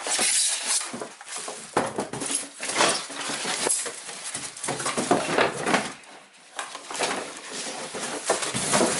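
Irregular rustling, scraping and light knocks of packaging and the cleaner's parts being handled as a carpet cleaner is unpacked from its box, with a brief lull about six seconds in.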